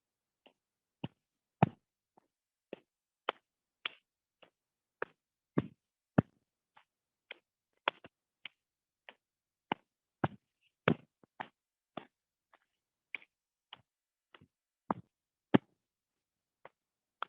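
A hand tapping along the arm and shoulder in a self-massage exercise: a steady run of sharp pats, about two a second.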